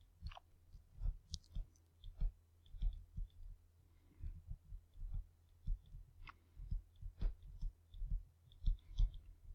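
Computer mouse buttons clicking at irregular intervals, over a faint steady low hum.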